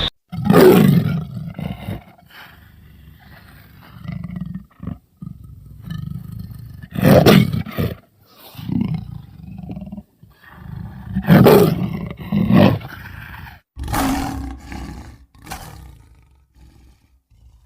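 Cartoon Carcharodontosaurus roar sound effect: a series of separate roars, the loudest about a second in, about seven seconds in and about eleven and a half seconds in, with lower, quieter growls between them, dying away near the end.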